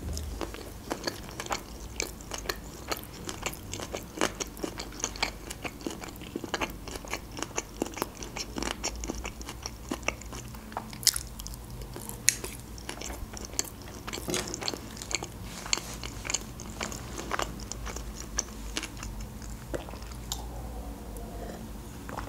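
Close-miked chewing of sushi rolls: a dense run of short sharp mouth clicks and crunches, several a second, with a few louder ones.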